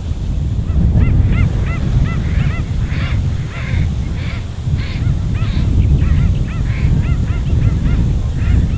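Wading birds calling in a rapid series of short, yapping, honk-like notes, about three or four a second, starting about a second in. The calls sound over a low rumble.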